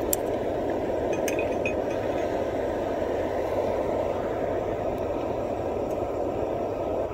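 BULin ultralight remote-canister gas camping stove burning steadily with a low rushing roar, its valve set at about half heat. A few light metal clinks sound in the first two seconds.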